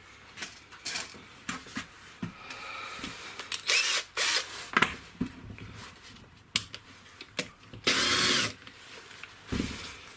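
Cordless drill-driver run in short trigger bursts, the motor whine rising and falling: two quick bursts about four seconds in and a longer one about eight seconds in. Scattered clicks and knocks of handling on the workbench between them.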